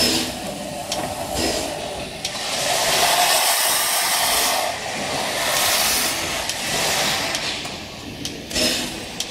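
Steam locomotive no. 5819, an SBB Eb 3/5 tank engine, moving slowly with steam blowing from its cylinder drain cocks: a loud hiss that swells twice in the middle, with light clanks and knocks of the running gear near the start and end.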